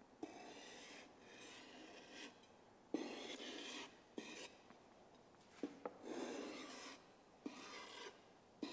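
Butcher knife blade being stroked across 400-grit sandpaper on a sheet of glass, sharpening the edge. It makes faint rasping strokes, about four of them, each lasting about a second, with a few light clicks between strokes.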